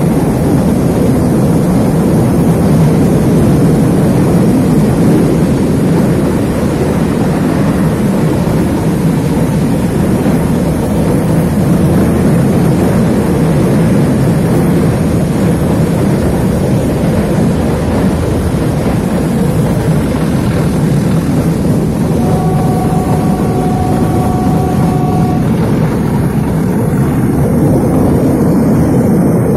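Metre-gauge diesel train climbing a hill grade: the diesel locomotive's engine running steadily under load together with the train's running noise, heard from an open coach window. Near the end a horn sounds one steady note for about three seconds.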